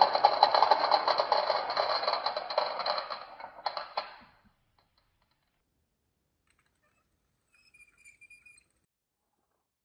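Marbles rattling down a marble run track: a dense stream of rapid clicks and clacks that thins out and dies away about four seconds in. A few faint ticks follow a few seconds later.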